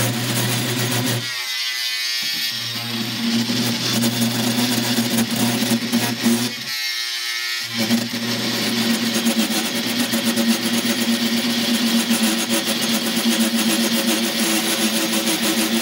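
Handheld angle grinder with a cut-off disc running and cutting into a wooden knife handle set in epoxy. The steady hum and hiss break off briefly twice, about a second in and again about seven seconds in.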